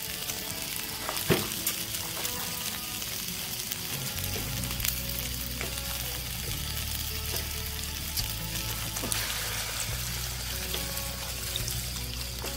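Mutton masala frying and sizzling in a black wok over a camp stove, with a metal spatula clicking and scraping against the pan as it is stirred.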